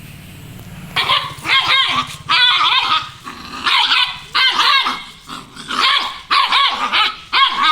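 A pet dog barking loudly and repeatedly in quick runs of barks, starting about a second in. A low steady hum sits underneath before the barking begins.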